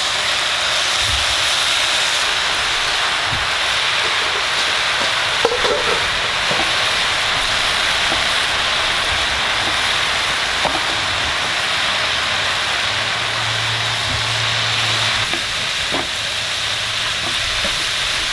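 Chayote and chicken stir-fry sizzling steadily in a hot frying pan under a load of freshly added, just-rinsed chayote shoots, with a few faint clicks.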